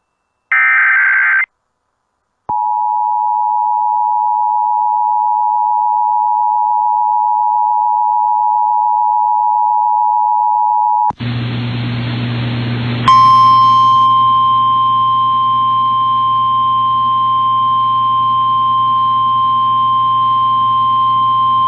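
Emergency Alert System alert signals announcing a High Wind Warning. A short buzzing SAME data burst comes first, then the steady two-tone EAS attention signal for about eight seconds. After a moment of radio static and hum, the NOAA Weather Radio single-tone warning alarm sounds steadily over the static.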